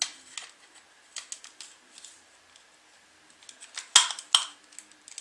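Small hard parts being handled and fitted: scattered light clicks and taps, with two sharp, louder clicks about half a second apart near the end.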